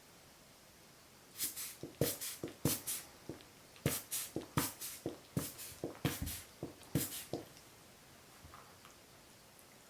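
Jack Russell Terrier chewing a tennis ball, the rubber shell squashing and springing back with a rhythmic 'peko peko' popping. About a second in a run of crisp pops starts, mostly in pairs about three quarters of a second apart, and stops a little past halfway.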